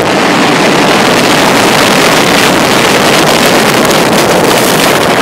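Aftermath of a quarry rock blast: a loud, steady rush of blasted rock debris and dust sweeping over the microphone, with a crackle of many small hits in the second half.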